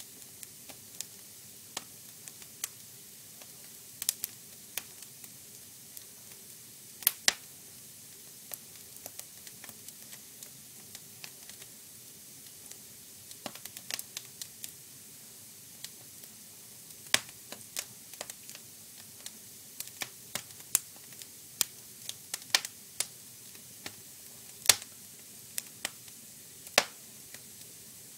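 Fire crackling: irregular sharp pops and snaps, some much louder than others, over a soft steady hiss, with one of the loudest pops near the end.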